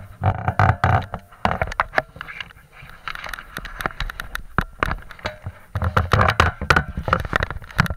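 Snow-plow golf cart running, with an uneven low rumble and many sharp clicks and rattles.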